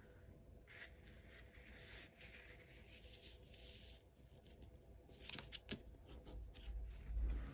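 Faint rustling of folded cotton quilting fabric and a card template being laid down and smoothed by hand on a cutting mat. A few short, sharper handling sounds come in the last couple of seconds.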